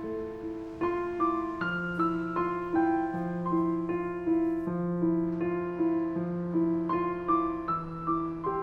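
Background music: a gentle piano melody of repeated notes, about two to three a second, over held bass notes.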